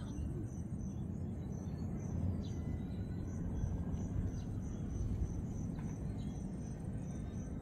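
Outdoor ambience: an insect chirping in a steady high-pitched rhythm of about four pulses a second, over a constant low rumble.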